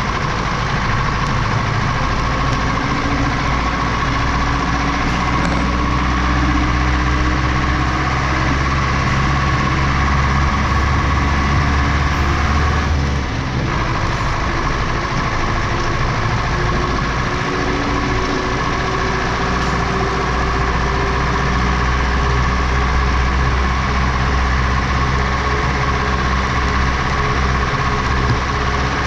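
Tractor engine running steadily under load while the tractor drives along a dirt field track, heard close to the front wheel. The engine note dips briefly about halfway through, then its pitch slowly rises.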